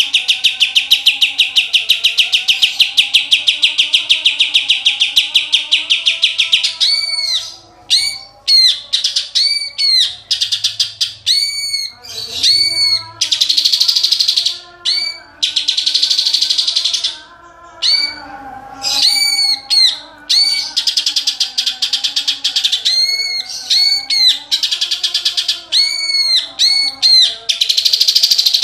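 A cucak ijo (green leafbird) singing loudly. It opens with a long, fast trill that runs about six seconds, then switches to a string of repeated arching whistled notes broken by short buzzy trills: song filled with mimicked kapas tembak and kingfisher (tengkek) calls.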